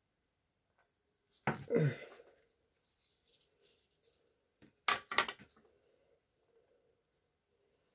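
Dried toothpaste tablets clattering in a small glass jar and a metal sieve as they are tipped and shaken: a clattering pour about a second and a half in, then a couple of sharp clinks about five seconds in.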